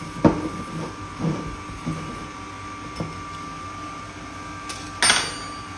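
Kenwood stand mixer running steadily at its lowest speed. A hand whisk clicks against a bowl just after the start and knocks again about a second in, and a short scraping rustle comes about five seconds in.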